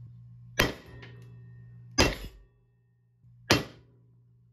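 Hammer striking a small silver button on a steel bench-vise anvil to flatten it, three sharp blows about a second and a half apart, each with a brief metallic ring.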